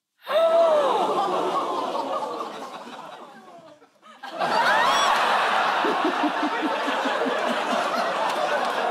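Studio audience laughing and exclaiming, dying away over about three seconds, then breaking out again about four seconds in and holding steady.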